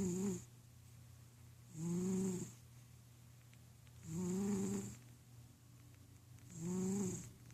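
Domestic cat snoring in its sleep: a pitched snore roughly every two and a half seconds, each under a second long, one fading out just after the start and three more following.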